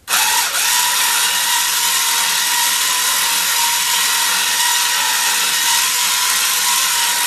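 Electric winch starting suddenly and then running steadily with a constant whine, winding in the rope as it hauls well pipe up out of the ground.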